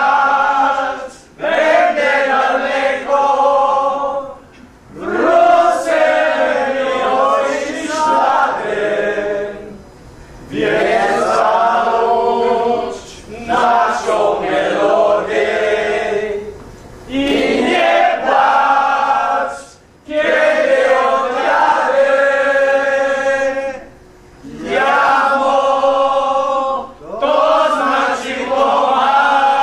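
A group of men singing a Polish song together in unison, in sung phrases of a few seconds each with short breaks for breath between them.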